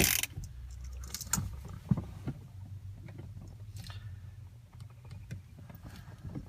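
Scattered metallic clicks and a short clatter of hand tools being handled, with a low steady hum.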